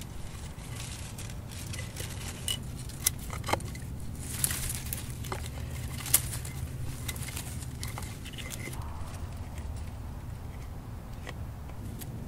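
Hands handling a cane pipe among dry twigs: scattered small clicks and crackles, the sharpest about six seconds in, over a steady low rumble.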